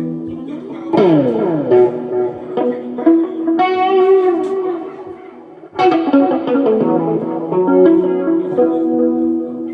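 Guitar being played, held notes ringing together, with a downward pitch slide about a second in and a hard-struck chord near six seconds.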